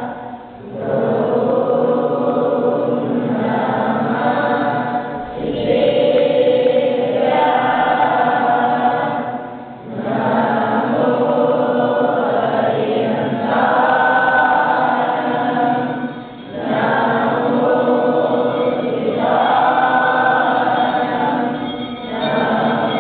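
A large group of boys chanting a Jain mantra together in unison, in long phrases broken by short pauses for breath every five or six seconds.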